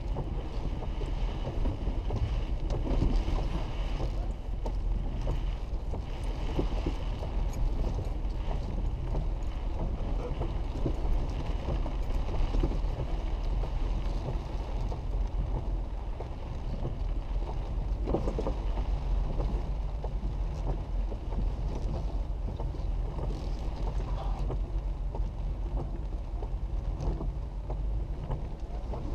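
Jeep Wrangler JK driving slowly over a rough dirt trail, heard from inside the cab: a steady low engine and driveline rumble with a hiss of tyres and rain over it.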